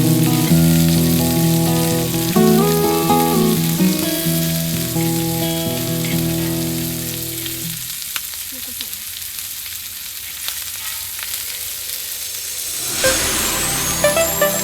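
Food frying on a multi griddle pan, a steady sizzling hiss. Background music with held notes plays over it, fades out about halfway, and a new tune comes in near the end.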